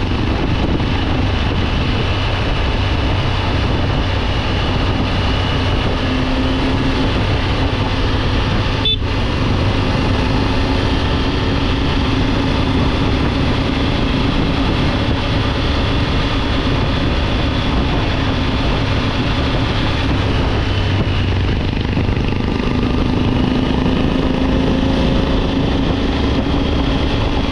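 Triumph Tiger 900 GT Pro's three-cylinder engine running at a steady road speed under heavy wind rush, its pitch drifting slightly as the throttle changes. The sound cuts out for a moment about nine seconds in.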